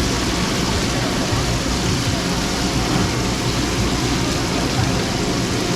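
Steady, even noise of a busy street-food stall: a continuous cooking hiss mixed with market chatter.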